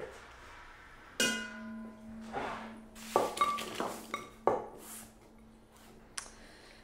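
A dish set down about a second in, ringing with a clear steady tone that hangs on for several seconds, followed by a few lighter clinks and knocks of a bowl being handled on a wooden cutting board.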